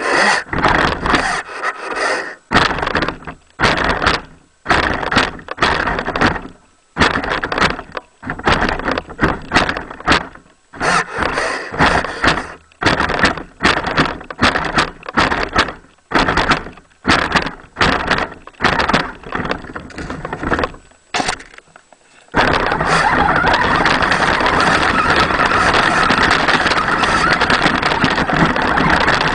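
Radio-controlled 4WD truck driving through snow, heard from a camera in a waterproof housing on its front. Its drive runs in many short bursts of throttle, stopping and starting, then runs steadily without a break for the last quarter.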